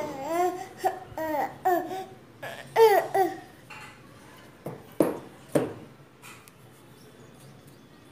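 Toddler babbling in a string of short, high-pitched rising and falling sounds, laughing at times. Then come two short, sharp, louder sounds about half a second apart, and it goes quiet.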